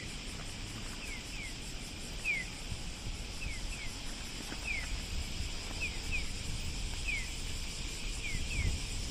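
Japanese pedestrian crossing's audible signal chirping in the bird-like 'piyo … pi-piyo' pattern: one short falling electronic chirp alternating with a quick pair, about once a second, while the walk light is on. Underneath are a steady street rumble and a high hiss.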